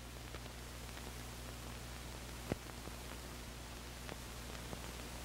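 Steady hiss and low hum of an old film soundtrack, with scattered faint crackle clicks and one sharper pop about halfway through.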